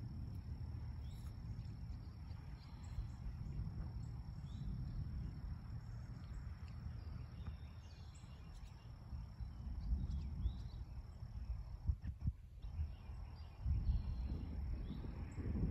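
Distant thunder rumbling low and faint under a steady high insect drone, with scattered faint bird chirps; the rumble grows louder near the end.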